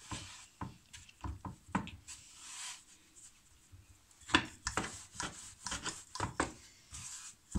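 Hands pressing a floured ball of wheat dough flat on a wooden board, then a wooden rolling pin rolling it out from about four seconds in. There is a quick string of knocks and rubbing of wood on wood.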